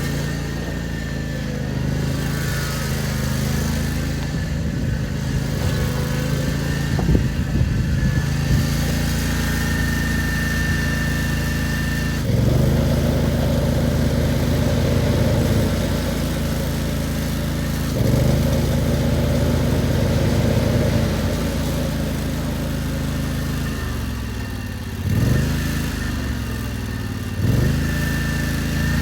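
Bobcat ZT 219 zero-turn mower's gas engine running steadily, getting louder for a few seconds about twelve and eighteen seconds in, with two short revs near the end.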